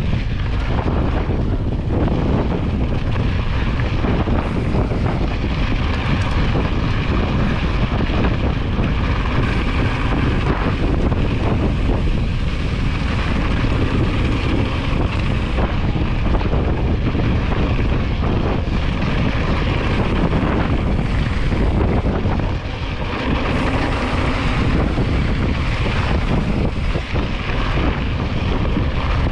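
Wind buffeting a handlebar-mounted camera's microphone while a mountain bike rolls down a loose, rocky trail, with tyre crunch and rattling from the bike over the stones. The noise is loud and steady, easing briefly about two-thirds of the way through.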